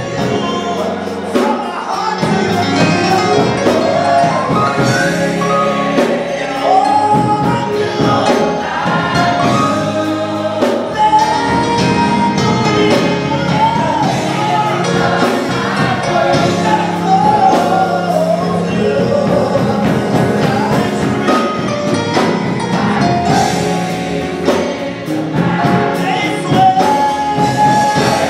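Gospel choir singing, with a man in front leading on a microphone, over accompaniment with steady low bass notes that change every few seconds.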